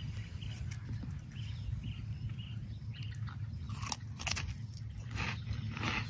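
A person chewing and crunching a dry high-fibre cracker spread with peanut butter, with sharper crunches in the second half, over a steady low rumble.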